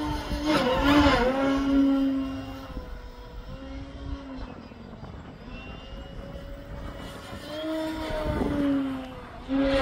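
AJ Aircraft 61-inch Slick radio-controlled aerobatic plane flying overhead: its propeller drone rises and falls in pitch as it manoeuvres, loudest a second or two in and again near the end.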